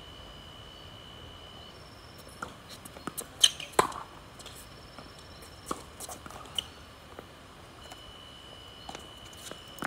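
Tennis ball struck by rackets and bouncing on a hard court during a rally: a string of sharp pops, the loudest pair about three and a half seconds in. A thin, steady high-pitched tone sounds in the background at the start and again near the end.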